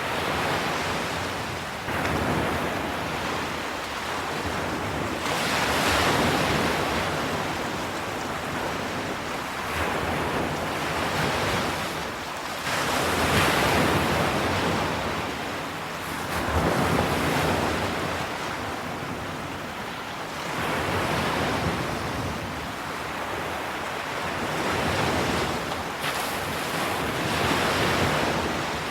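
Ocean waves breaking and washing up a shore. The surf swells and falls back every few seconds, and there is some wind.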